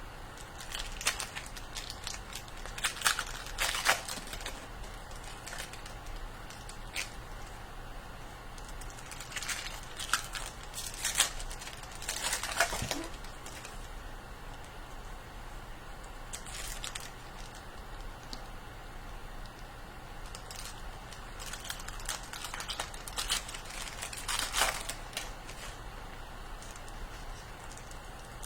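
Trading card pack wrappers crinkling and tearing open in scattered bursts as packs are opened and the cards handled.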